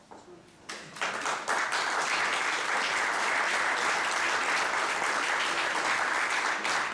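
Audience applauding, with many hands clapping; the applause starts about a second in and then holds steady.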